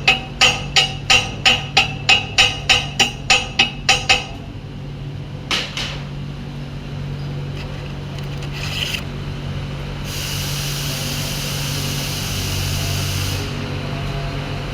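Chipping hammer knocking slag off a stick weld on steel pipe: quick ringing metal-on-metal strikes, about four a second, for roughly four seconds, then one more strike. Near the end a steady hiss runs for about three seconds over a constant low hum.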